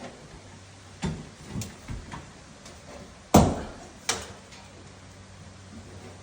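Knocks and clatters of demolition work, with one loud sharp bang about three and a half seconds in and a further knock after it.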